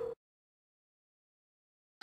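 Dead silence: the soundtrack cuts off sharply just after the start and nothing is heard after that.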